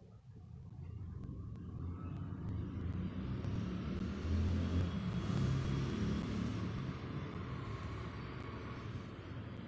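A passing vehicle's rumble: a low noise that swells to its loudest about halfway through and then fades.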